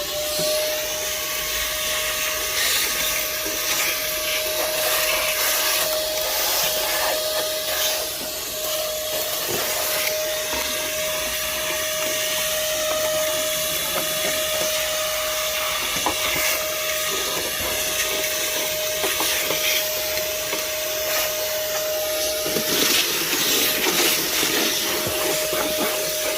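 Moosoo 18 V cordless shop vacuum running with a steady motor whine and airflow hiss, having just spun up. It makes scattered sharp clicks and rattles as it sucks small rocks and gravel out of crevices.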